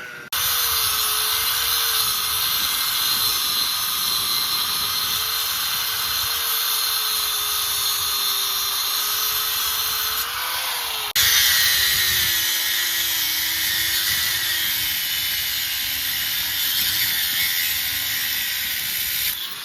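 Angle grinder cutting through a car's coil spring to lower the car, running under load with a steady hiss and a slightly wavering whine. It stops for an instant about eleven seconds in and starts again.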